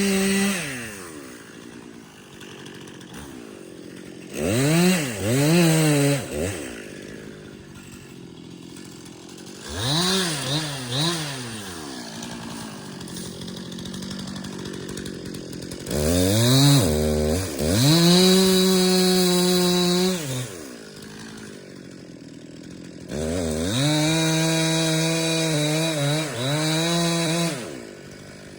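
Two-stroke chainsaw cutting bitternut hickory: it idles between four throttle bursts, the longer ones held at high revs with the pitch sagging and recovering as the chain bites.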